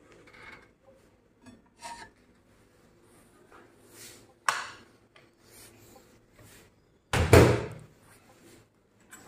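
Kitchen handling sounds: scattered light clicks and knocks, a sharper clatter about four and a half seconds in, and a loud, heavy bump about seven seconds in.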